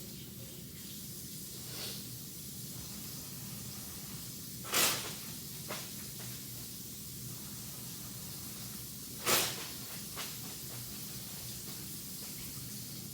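Tap water running steadily into a sink during hand washing, with two brief louder bursts about four and a half seconds apart. The running water stops near the end.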